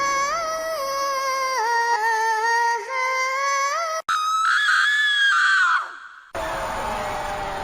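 A string of horror sound effects: an eerie, wavering wail with its pitch sliding and stepping for about four seconds, then, after an abrupt cut, a high-pitched scream that fades out. A different, noisy effect starts near the end.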